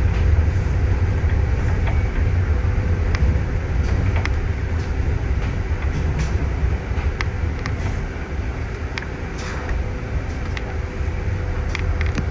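City bus driving, heard from inside the cabin: a steady low engine and road rumble with a few scattered light rattles and clicks.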